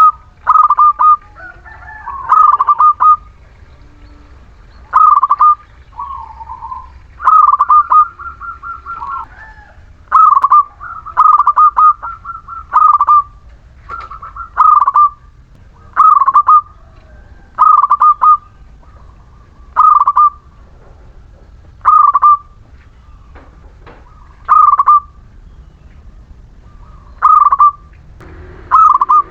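Zebra dove (perkutut) singing freely: loud, rhythmic cooing phrases of quick notes, repeated every two to three seconds.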